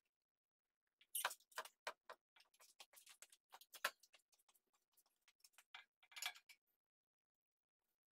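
Irregular light metallic clicks and ticks from about a second in until near the end, with two louder knocks, as the engine and its hoist chain shift while the engine is lowered into the engine bay.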